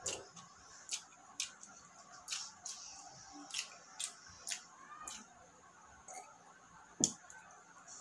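Eating sounds of a person chewing rice and chicken adobo eaten by hand: a run of short, wet smacking clicks about twice a second, the sharpest one about seven seconds in.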